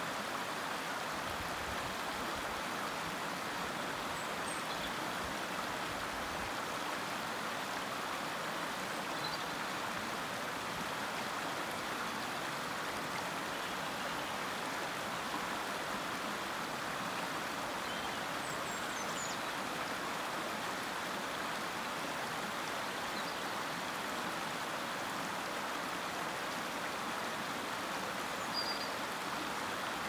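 Shallow stream rushing over stones and pebbles in small rapids: a steady, even babble of running water.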